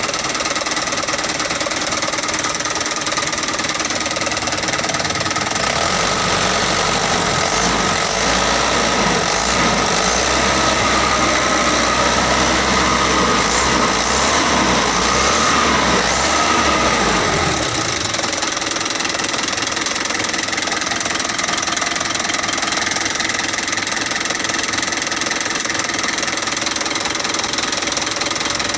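Truck engine running steadily. From about six seconds in it runs a little louder and deeper, its pitch rising and falling for some ten seconds, then it settles back to a steady run.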